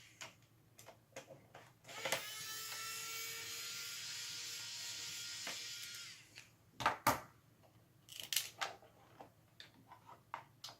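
Small electric screwdriver running for about four seconds as it backs a screw out of the transmitter's circuit board, with scattered clicks and taps of the tool and small plastic parts before and after.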